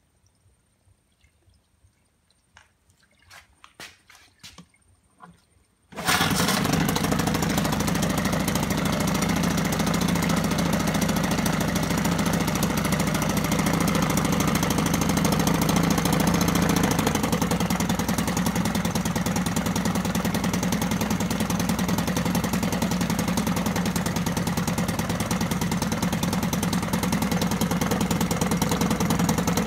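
Johnson 9.9 two-stroke outboard motor, its lower unit sitting in a test barrel of water. A few light clicks and knocks come first, then about six seconds in the engine fires abruptly and runs steadily. The cooling-water tell-tale is streaming, a sign that the water pump is working.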